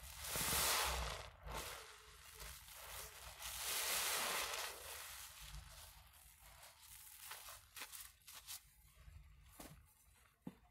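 Soap-soaked sponges squeezed by gloved hands: two long squishes of wet lather, about a second in and around four seconds, then quieter crackling and popping of foam.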